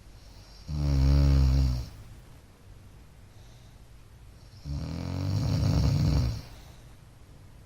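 A man snoring: two loud, low snores, the first about a second in and lasting about a second, the second starting near five seconds in and running nearly two seconds.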